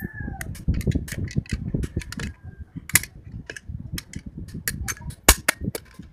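Irregular metal clicks and clinks as the clutch drum and its steel and friction plates are turned and worked by hand inside an automatic transmission case.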